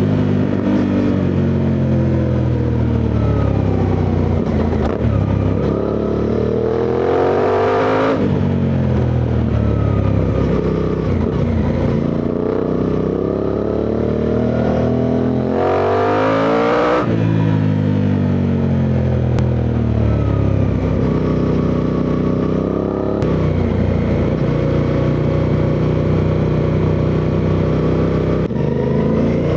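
Suzuki V-Strom 800DE parallel-twin engine under way, its revs climbing hard to peaks about eight and seventeen seconds in and dropping off sharply each time, then falling and running steadier near the end.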